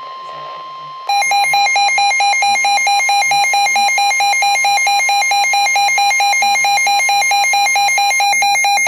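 A weather radio alerting to a warning: the steady NOAA Weather Radio warning tone for about a second, then the Midland weather radio's own alarm, a loud electronic beeping that switches rapidly between two pitches for about eight seconds and cuts off suddenly.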